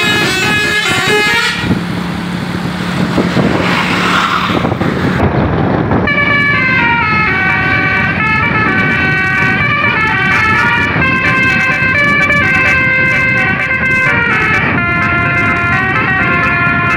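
Tour bus 'Basuri' telolet musical horn playing a quick tune of stepping high notes over bus engine noise. About two seconds in, the tune gives way to a rush of noise with a low steady drone, and it resumes about six seconds in.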